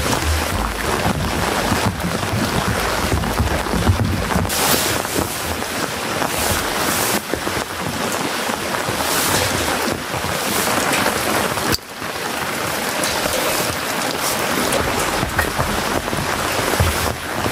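Steady, loud rain falling, an even hiss with a few heavier surges and a brief break about twelve seconds in.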